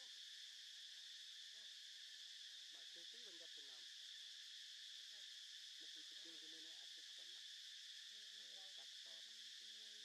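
Faint, steady high-pitched drone of an insect chorus, unbroken throughout.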